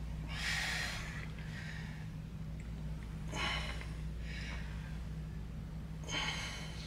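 A man breathing hard through a set on a seated hip machine: five short, forceful breaths a second or two apart, the first the loudest, over a steady low hum.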